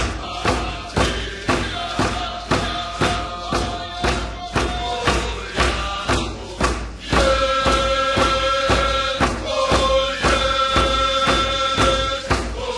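Background music: a drum struck steadily about twice a second under chanting voices, growing louder with long held notes about halfway through.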